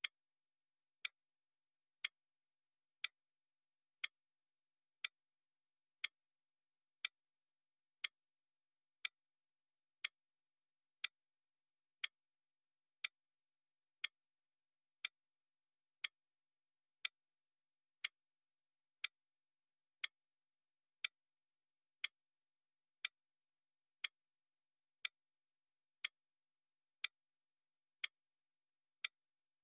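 Clock-tick sound effect keeping time for an on-screen countdown timer: one short tick every second, each tick marking a second of the exam time running down.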